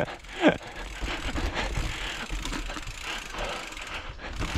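Fully rigid single-speed mountain bike coasting over rough trail, the rear hub ticking rapidly and the bike rattling, with low wind rumble on the microphone. A short falling squeal sounds about half a second in.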